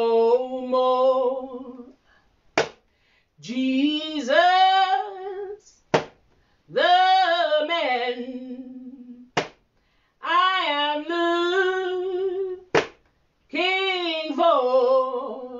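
A woman singing a slow a cappella song in long, drawn-out phrases with a wavering pitch. Between the phrases a single sharp strike marks the beat, four times, about every three and a half seconds.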